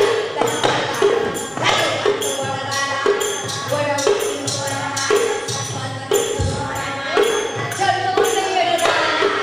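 Burrakatha folk song: women's voices singing over a tambura-style drone lute and small barrel hand drums, with a steady percussive beat about twice a second.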